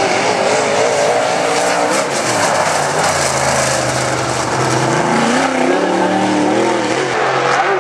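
Dirt-track modified race car running hard on a solo qualifying lap, its engine note rising and falling as it works through the turns and climbing again in the second half.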